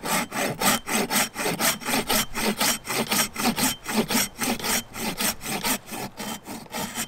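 Silky Pocketboy curved folding saw cutting through a small aspen log in quick, steady back-and-forth strokes, about three a second. Its teeth are a little worn, which the owner feels makes the cut take more effort.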